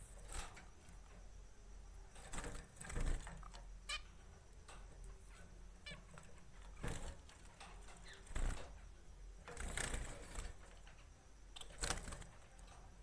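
Small pet birds in their cage: scattered short chirps mixed with irregular scratching and tapping from their moving about.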